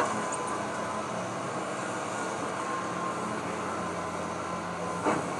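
Excavator engine running steadily during a house demolition, with a sharp knock right at the start and another about five seconds in as debris is struck.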